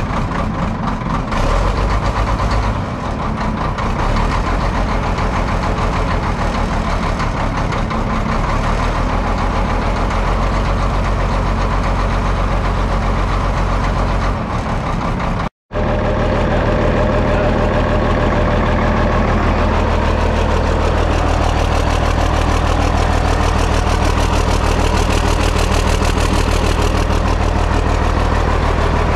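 Caterpillar 977K track loader's diesel engine idling steadily just after being started, having sat for a couple of weeks. The sound cuts out briefly about halfway, then the idle carries on.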